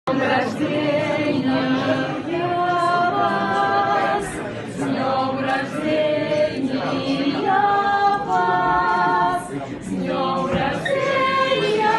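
A group of voices singing a cappella in harmony, holding chords that move in steps, with no instruments.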